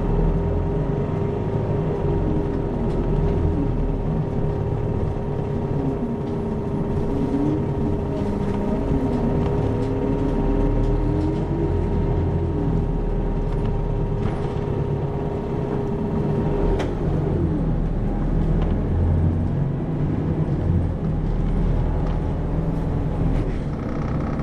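Isuzu 2KG-LR290J4 (Erga Mio) diesel route bus under way, heard from inside the cabin: a low engine rumble whose pitch rises and falls several times as the bus accelerates and slows. A steady tone runs along with it and cuts off with a click about two-thirds of the way through.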